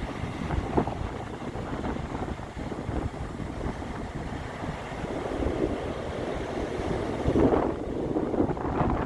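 Ocean waves washing onto a beach, with wind buffeting the microphone; a louder wave breaks about seven seconds in.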